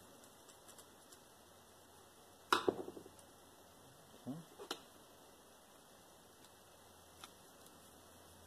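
A few light clicks and knocks from a screwdriver and a plastic plug end being handled while wires are fitted under the terminal screws. The sharpest knock comes about two and a half seconds in, with a brief rattle after it, followed by two softer knocks a little after four seconds.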